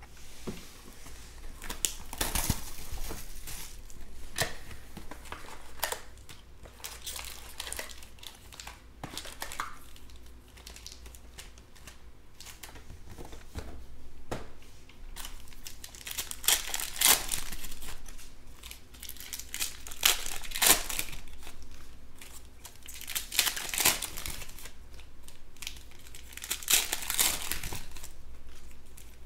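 Hands crinkling and tearing open shiny plastic wrappers of Panini Chronicles baseball card packs and box, in irregular bursts of crackling with sharper tearing rips.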